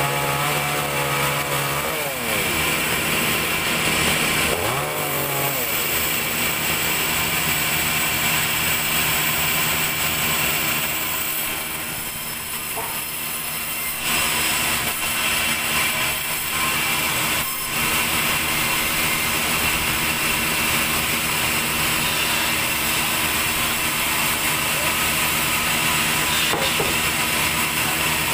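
A chainsaw engine runs and revs for the first few seconds, its pitch sliding up and down. Then a large vertical band saw in a sawmill runs steadily, its blade cutting lengthwise through a log.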